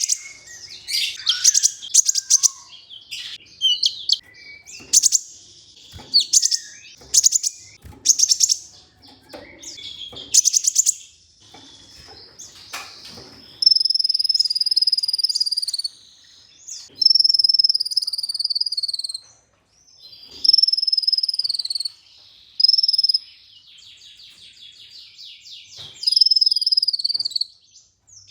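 Kolibri ninja sunbird song: rapid, high chattering trills for the first half, then a run of long, high whistled notes, each sliding slightly down and repeated every couple of seconds.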